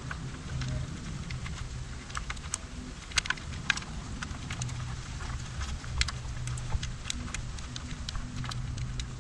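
Irregular light clicks and rattles of wiring and plastic connectors being handled and pushed into an e-bike's downtube controller housing, with a few sharper clicks about three and six seconds in, over a low steady hum.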